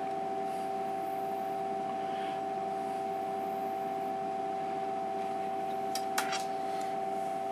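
Emco Compact 5 CNC lathe humming steadily with an even two-note whine. A brief click comes about six seconds in.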